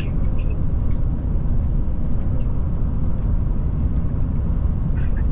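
Steady low road and engine rumble heard from inside a vehicle's cabin while driving.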